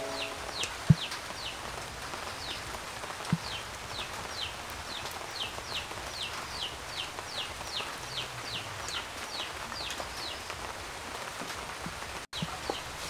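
Wooden spoon knocking twice against the ceramic bowl and pan, about a second and three seconds in, over a steady hiss. A high, falling chirp repeats about twice a second throughout.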